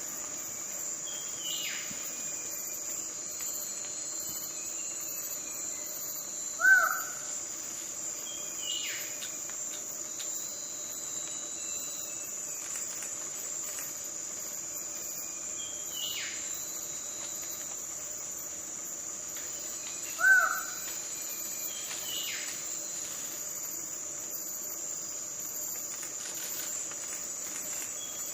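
Twelve-wired bird-of-paradise giving two short, loud calls about 14 seconds apart. Behind them is a steady high drone of insects, with other birds calling faintly now and then.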